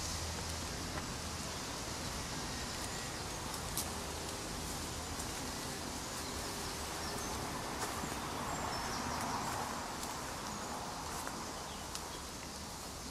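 Outdoor ambience: a steady hiss of rustling leaves and air, with a few faint clicks scattered through it.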